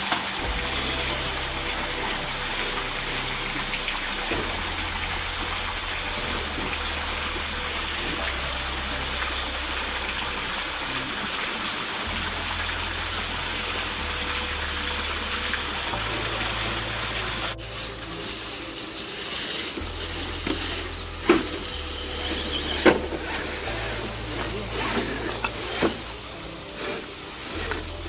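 Steady rushing of a waterfall pouring into a pool. About two-thirds of the way in, the rush drops away and a few sharp clicks and knocks are heard. A low bass line of background music, changing note every couple of seconds, runs underneath throughout.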